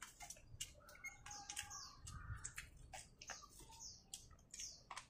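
Small birds chirping, with many short, high, falling chirps in quick succession. Alongside them come faint sharp clicks from eating: a metal spoon tapping a small ceramic bowl, and chewing.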